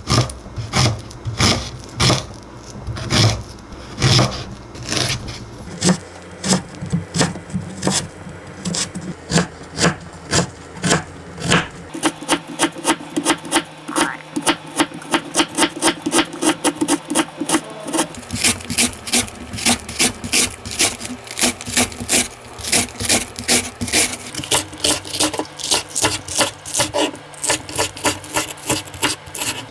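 Ceramic kitchen knife chopping on a wooden cutting board, garlic and then Japanese leek. About two cuts a second at first; from about twelve seconds in, fast, even chopping of several strokes a second.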